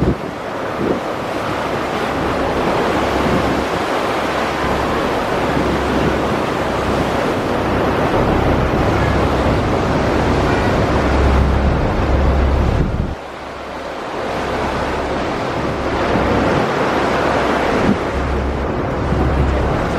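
Wind buffeting the microphone in gusts over a steady rush of water aboard a moving river ferry; the noise dips briefly about two-thirds of the way through.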